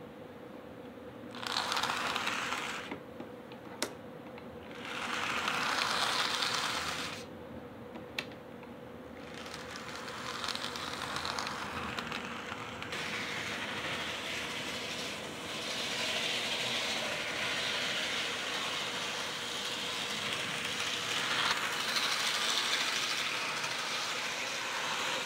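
AHM HO-scale Burlington Northern diesel locomotive model, freshly cleaned and lubricated, running on the track: its small motor and gears whir and its wheels rattle on the rails. The sound swells twice in the first several seconds as it passes close, then runs on continuously with slow rises and falls as it circles the layout.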